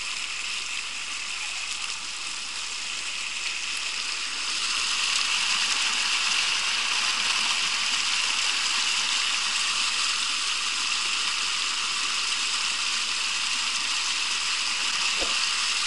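Water of a small river burbling and rushing over rocks in a rapid, a steady noise that grows louder about four seconds in.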